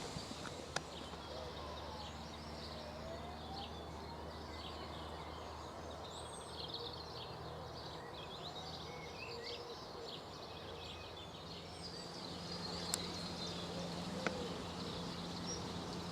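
Small songbirds singing and chirping in a busy spring chorus, over a faint steady low hum. A few sharp clicks stand out near the start and again twice near the end.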